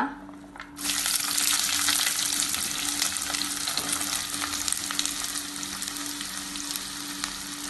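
Sliced onions dropped into hot ghee in a clay pot, sizzling loudly. The sizzle starts suddenly about a second in and slowly dies down.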